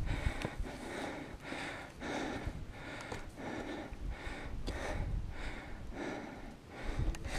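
A climber's heavy, laboured breathing close to the microphone while scrambling up steep rock, in and out about twice a second, with a low wind rumble on the microphone.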